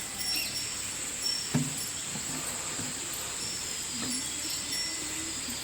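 Steady high-pitched drone of insects, likely crickets, with faint distant voices and a single knock about a second and a half in.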